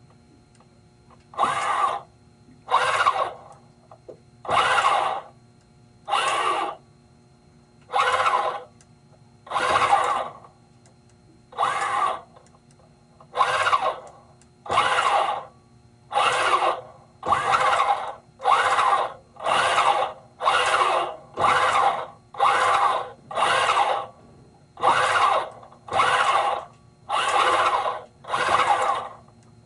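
Yacht Controller YAMAS electro-hydraulic shift actuators cycling the transmission shift cables in and out of gear. About twenty short runs of the actuator motor, each under a second, start about a second and a half in. They come every couple of seconds at first, then about once a second.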